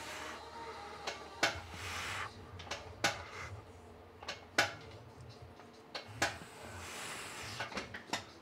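Hamstring curl machine worked through unweighted reps with a resistance band fitted: a sharp knock from the moving arm and frame about every second and a half, with rubbing, sliding noise between the knocks.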